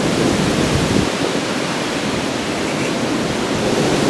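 Steady rushing noise of strong storm wind and rain, with a low rumble of wind on the microphone.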